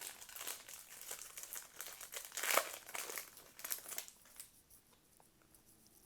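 Trading-card packaging being opened by hand: plastic wrap crinkling and tearing in a dense crackle for about four seconds, then dying down to a few faint ticks.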